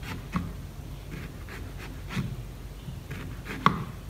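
Knife slicing a banana flower thinly on a wooden chopping board: a run of short, uneven cutting taps about two or three a second, the sharpest one near the end.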